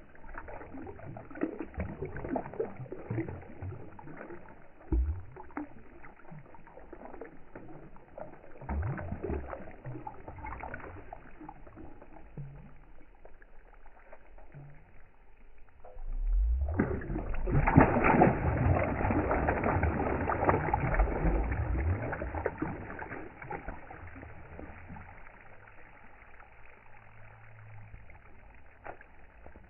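Fish splashing and thrashing at the surface of a pond, the water sloshing and churning. It swells into a louder stretch of splashing lasting about six seconds, a little past the middle.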